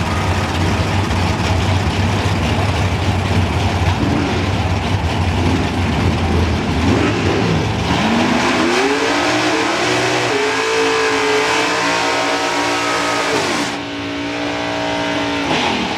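Drag race car engine running loud, then revving up with a rising pitch about eight seconds in, holding high, and dropping away near the end.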